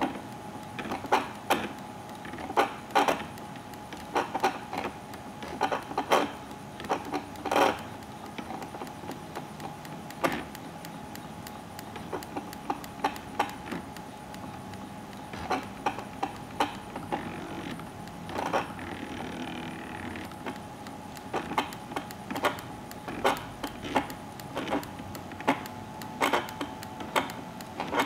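Home-built RepStrap 3D printer printing: its stepper motors give a thin steady whine under a constant fan hiss, with frequent sharp, irregular clicks and ticks as the print head moves and changes direction.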